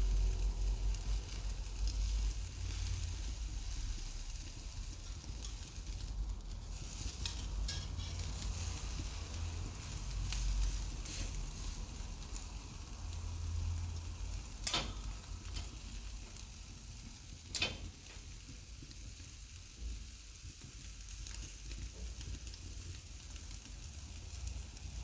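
Thick entrecôte steak sizzling steadily as it sears on a hot cast-iron grill grate over wood embers. Two sharp clicks stand out in the second half, about three seconds apart.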